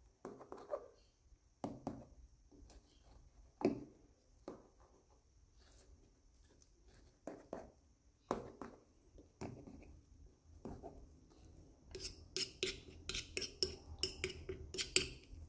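Metal ladle stirring a liquid gelatin mixture in a metal pan: scattered soft knocks and clinks against the pan, then a quick run of clinks and scrapes in the last few seconds.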